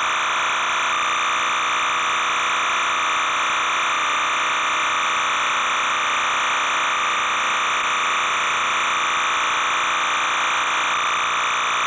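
Steady hiss with a buzzing tone, unchanging in level: electronic noise on the old tape transfer's soundtrack rather than any game sound.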